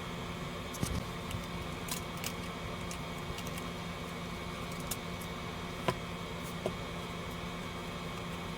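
Steady background hum and hiss, with a few faint scattered clicks.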